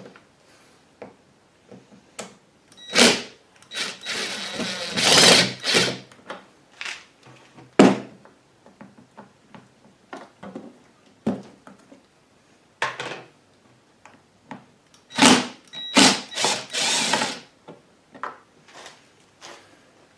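Hand work removing the plastic side cover of a WEN 56235i inverter generator: scattered clicks and knocks, with a few longer bursts of scraping or whirring tool noise.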